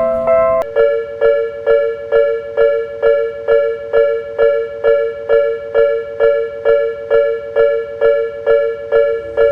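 Railway level-crossing warning bell ringing in an even, fast repeat, about three dings a second, each ding a two-note chime. A little under a second in, a slower, higher-pitched crossing bell gives way to this one.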